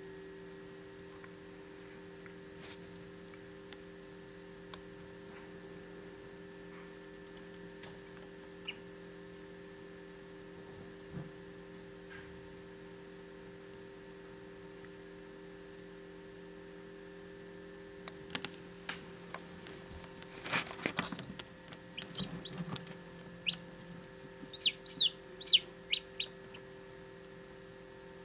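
Steady hum of an incubator. From about two-thirds of the way through come scattered clicks and crackling as a hatching Jubilee Orpington chick pushes against its cracked shell, then a quick run of high-pitched chick peeps near the end, the loudest sounds here.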